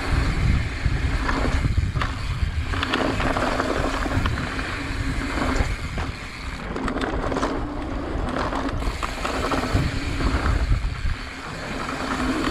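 Mountain bike riding fast down a dry dirt trail: wind buffeting the handlebar-mounted camera's microphone, tyres rumbling over hard-packed dirt, and the bike rattling and clicking over bumps, with a steady hum underneath.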